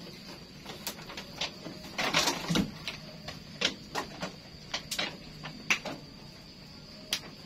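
Sheep pulling and chewing cut grass at a wooden trough: rustling and crunching with a scatter of sharp clicks and knocks, loudest in a burst about two seconds in. A faint steady high hiss runs underneath.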